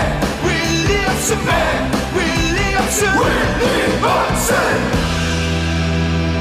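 Korean baseball player cheer song: a sung chant over rock-style band backing with bass, drums and cymbal hits, the voices stopping about five seconds in while a chord is held.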